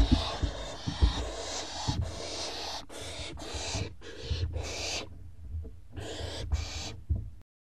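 Owlets in a nest box giving raspy hissing calls in short repeated spells, with thumps and scuffling as they shuffle against the box. The sound cuts off near the end.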